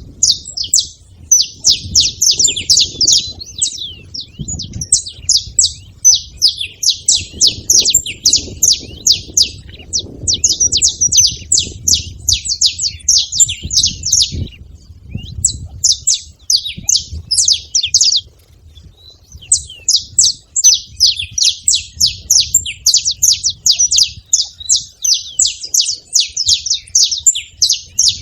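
Several saffron finches singing and chattering together in long, rapid runs of high, quick notes, broken by two short pauses.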